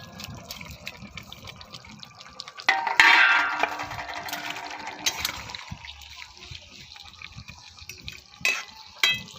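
Fish-head curry bubbling in a pan, with a loud metallic clatter of a utensil on the pan about three seconds in. Near the end come two sharp clanks with a brief ring as a metal lid is set on the pan.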